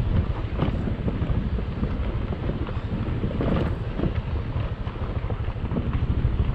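Honda motor scooter riding over a bumpy, unpaved dirt road, with wind rumbling on the microphone.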